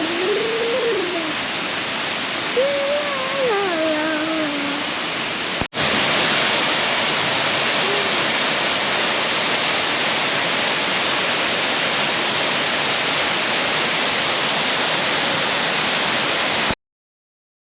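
Waterfall rushing in a steady roar of falling water. During the first few seconds a long, wavering voice-like call rises and falls over it. The sound cuts briefly about six seconds in, continues a little louder, and stops abruptly near the end.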